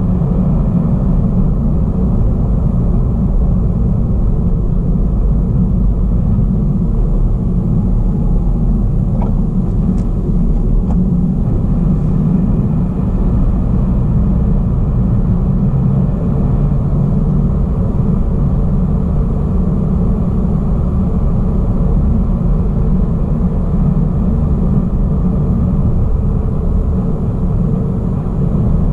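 Steady rumble of a car driving along a road, tyre and engine noise heard from inside the cabin, low and muffled.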